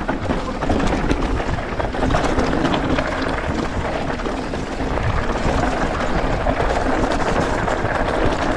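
Steady rushing and rumbling riding noise of an electric mountain bike rolling along a dirt track, with wind on the microphone.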